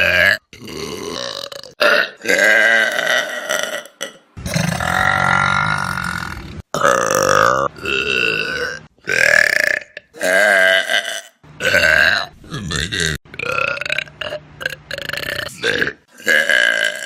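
A rapid succession of loud human burps from separate short clips, each ending abruptly, some long and drawn-out at about two seconds, with snatches of voices between them.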